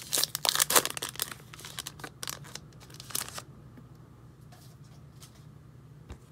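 Plastic wrapper of a 2020 Topps Gypsy Queen baseball card pack crinkling and tearing as it is ripped open by hand. It stops about three and a half seconds in, leaving only faint rustles of the cards being handled.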